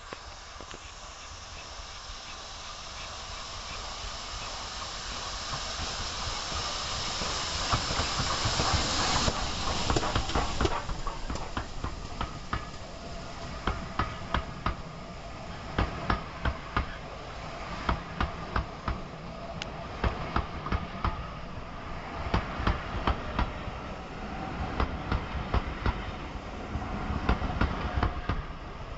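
Steam locomotive approaching with a hiss of steam that grows louder, then stops suddenly about nine seconds in. A train of passenger coaches then rolls past, its wheels clicking over the rail joints in quick pairs.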